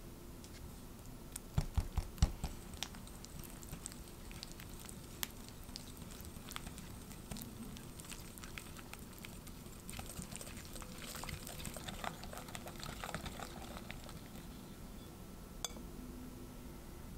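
Wire balloon whisk beating egg yolks and vanilla into creamed butter in a glass bowl: a soft wet patter with many small clicks of the wires against the glass. There are a few sharper knocks about two seconds in.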